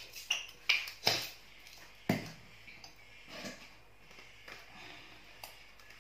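A few short, sharp knocks and clicks in the first two seconds, the loudest about a second in, followed by faint handling noise.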